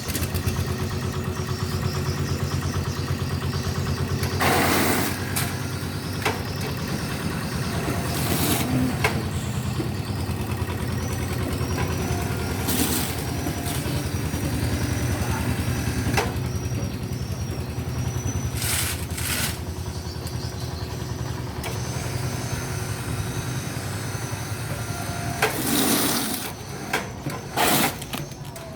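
A large engine of heavy port machinery running steadily, broken every few seconds by short bursts of hissing air, with a few more bursts close together near the end.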